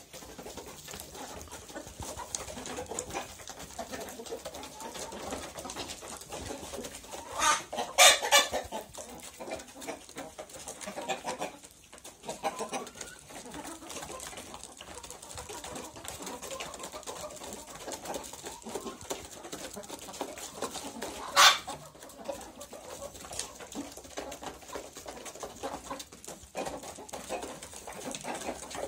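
A flock of domestic chickens, hens and roosters, clucking steadily. Two short loud squawks stand out, one about a quarter of the way in and a sharper one past two-thirds.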